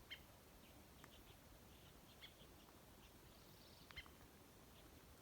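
Near-quiet air with faint, scattered short high chirps of small songbirds, a handful of separate calls, the loudest about four seconds in.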